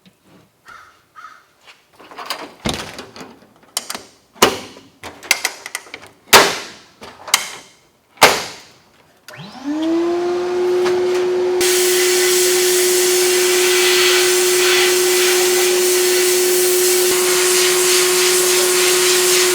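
Metal parts clanking and being set down. Then a bead-blast cabinet starts up: its motor spins up to a steady hum, and a couple of seconds later a loud steady hiss of blasting air joins it.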